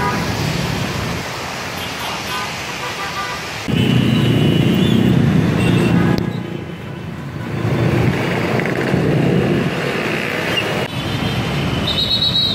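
Heavy, slow road traffic on a wet road: car and truck engines running with tyre noise, and a few short car-horn toots.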